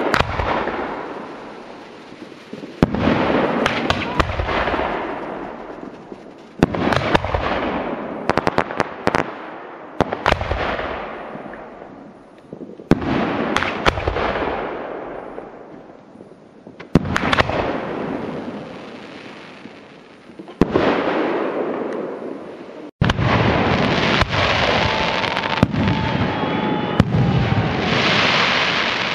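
Aerial fireworks: a string of bursts, each a sharp bang followed by a long fading tail of crackles, about every three to four seconds. Near the end it cuts to a denser, continuous barrage.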